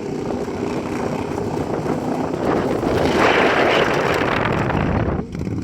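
Racing lawnmower's engine running under load, with wind buffeting the microphone. About halfway through a loud rushing noise swells over the engine, and the sound drops briefly just before the end.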